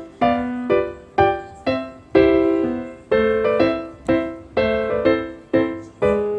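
Background piano music: single struck notes at an easy pace, about two a second, each ringing and fading before the next.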